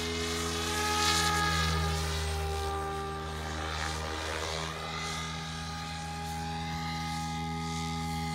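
Radio-controlled model helicopter in flight: a steady rotor and motor drone made of several fixed pitches, swelling a little about a second in.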